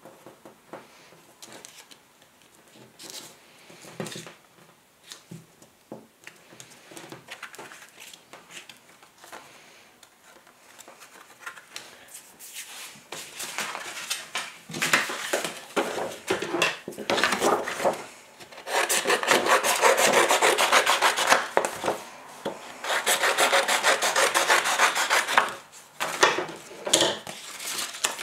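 Paper and card being handled on a wooden table: light taps and small handling sounds at first, then from about halfway, rustling and rubbing of long card strips that grows louder, with two long loud stretches near the end.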